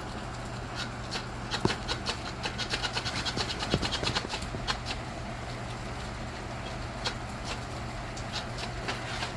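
Steady hiss of heavy rain, with a run of sharp, irregular taps and clicks about two to four seconds in and a few more later.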